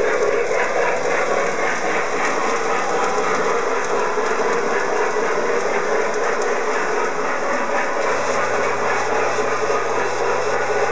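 Model train running on the layout: a steady mechanical running noise, with a low hum joining about eight seconds in.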